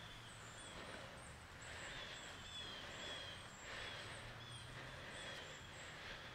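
Faint rustling in dry leaves in short bursts every second or two, with thin, high bird chirps repeating over it.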